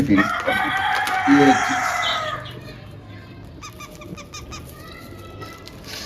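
A rooster crowing once, a long call of about two and a half seconds that falls away at the end, followed by fainter short bird calls.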